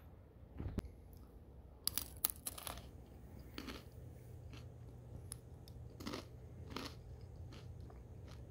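A pretzel rod being bitten and chewed close to the microphone: a quick cluster of sharp crunches about two seconds in, then single crunches every second or so.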